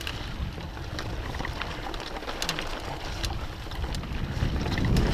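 Mountain bike rolling along a dirt singletrack: wind rumble on the camera microphone, with scattered clicks and rattles from the bike over the rough ground. The rumble grows louder about four and a half seconds in.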